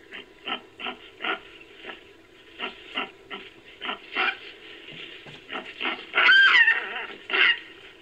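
Baboon calls: a run of short calls, two or three a second, then a louder call about six seconds in that rises and falls in pitch, and one more strong call soon after.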